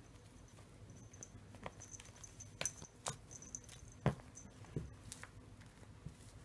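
A cat wrestling a feathered catnip toy on carpet: scattered soft thumps, scuffs and rustles as it rolls, kicks and bites. The loudest thump comes about four seconds in.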